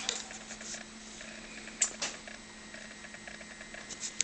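Apple Macintosh SE (M5011) running just after power-on: a steady low hum from the machine, with a few sharp clicks, one about two seconds in and another near the end.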